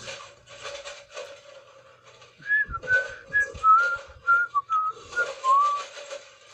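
A man whistling a short tune through his lips: about eight quick notes stepping up and down, starting about two and a half seconds in.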